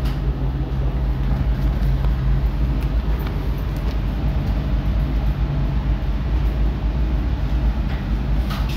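Steady low rumble with a low hum of two steady tones that fades out about two seconds in.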